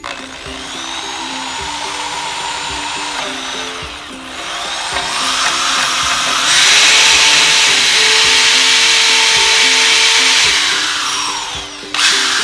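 Power drill boring holes into wood: one run, a brief easing about four seconds in, then a longer, louder run that winds down near the end before the drill starts again. Light background music with a plucked melody plays underneath.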